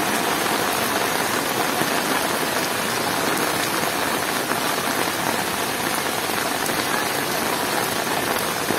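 Heavy rain pouring steadily onto standing floodwater and flooded ground: a dense, even hiss of splashing drops.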